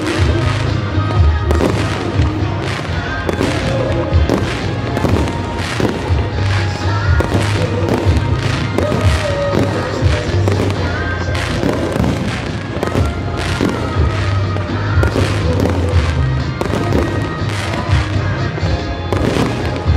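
Fireworks shells bursting in quick, uneven succession with many bangs, over loud music with a steady bass: a pyromusical display, the fireworks fired to a musical soundtrack.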